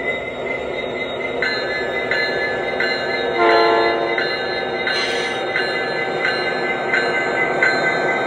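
A RailPro sound system in a battery-powered large-scale SD70 model diesel locomotive plays engine rumble during a run-by. A bell starts about a second and a half in and rings steadily, about once every 0.7 s. A short horn blast sounds about three and a half seconds in, and a brief hiss follows a second later.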